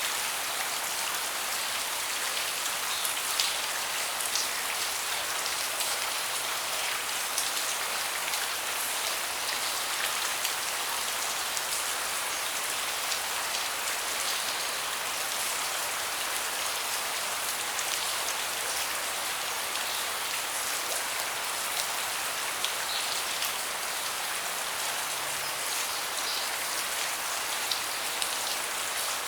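Steady rain falling on a deck: an even hiss with scattered sharper drop hits.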